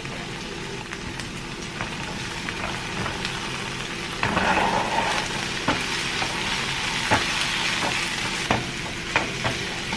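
Onions and minced garlic sizzling in coconut oil in a frying pan, stirred with a spoon that clicks against the pan now and then. The sizzle grows louder about four seconds in.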